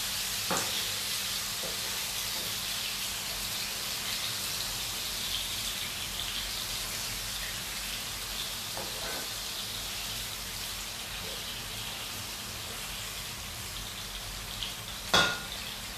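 Garlic, ginger, onions and pepper sizzling steadily in hot groundnut oil in a pan, with a sharp knock about a second before the end.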